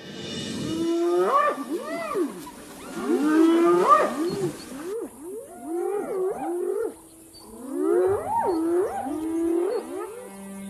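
Spotted hyenas calling: a rapid string of pitched, rising-and-falling whoops and wavering giggles, with a short lull about seven seconds in.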